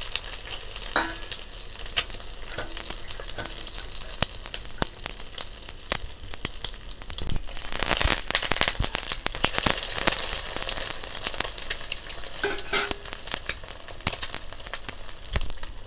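An egg frying in hot mustard oil in an aluminium kadai: steady sizzling and crackling full of small pops. About halfway through, a metal spatula works the egg against the pan and the sizzling gets louder for a few seconds.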